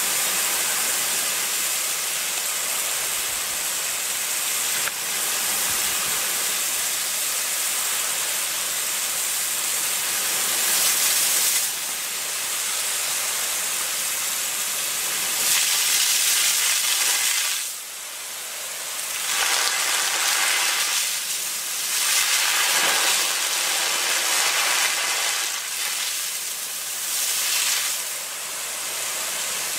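Mariner HT-47G rain gun sprinkler shooting a high-pressure water jet and spray, a steady hiss that swells louder and fades back several times.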